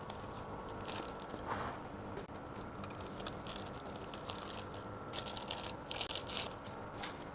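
Scattered light clicks and crinkles from handling plastic food packaging, with a busier cluster about five seconds in.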